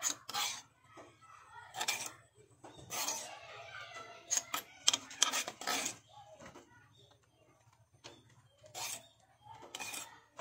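A metal spoon scraping and clinking against a stone mortar (cobek) as mango strips are stirred into chilli sambal, in a run of short, irregular scrapes and taps.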